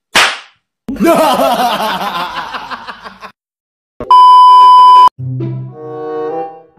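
A short rush of hiss, then about two seconds of dense noise with wavering tones, then a very loud beep held at one steady pitch for about a second: a TV test-pattern tone over a glitch transition. Plucked bass music starts right after the beep.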